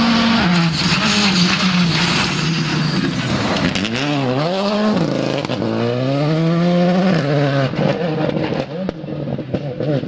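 Škoda Fabia R5 rally car's turbocharged four-cylinder engine at high revs on a gravel stage; the revs drop and swoop twice about four to five seconds in as it slows for the turn, then climb again as it accelerates away, fading near the end.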